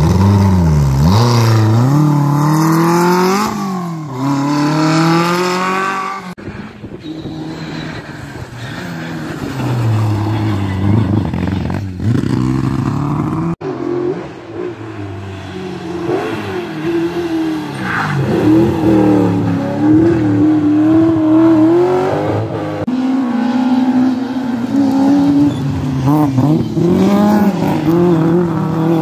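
Rally car engines revving hard through a hairpin, one car after another. The pitch drops on the downshifts and climbs as each car accelerates out, and the sound jumps between separate passes.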